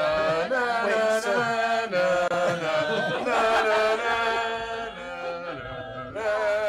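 Music with long held sung notes in a chanting style, dipping in level for a moment near the end.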